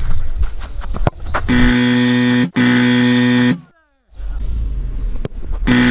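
Harsh game-show buzzer sound effect, about a second per buzz: twice back to back around the middle and once more near the end, with a short falling tone after the second buzz. Between buzzes there is faint outdoor noise and a few sharp knocks.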